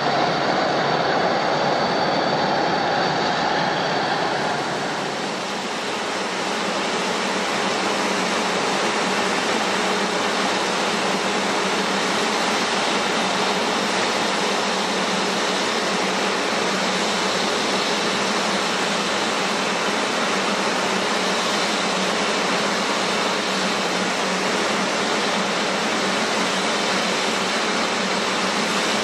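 Jet airliner engines idling as the aircraft taxi: a steady rushing hiss with a faint low hum. About five seconds in it changes to a broader, even rush, the idling engines of an Airbus A350-900 close by.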